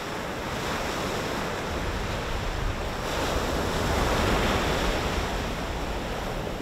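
Ocean surf breaking and washing up the beach, a steady rush that swells as a wave breaks about four seconds in.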